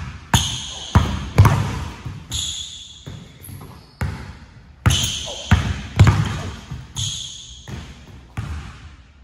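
A basketball is dribbled hard on a hardwood court in a string of sharp bounces. Several brief high squeaks come from sneakers gripping the floor as the player plants and spins into the finish.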